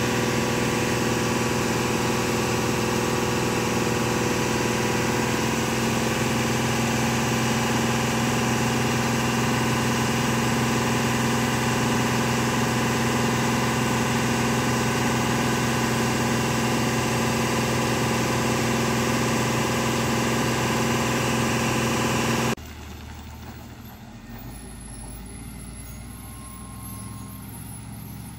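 Diesel engine of a heavily loaded 14-tyre lorry running steadily at idle. About 22 seconds in, the sound drops abruptly to a fainter, more distant truck engine.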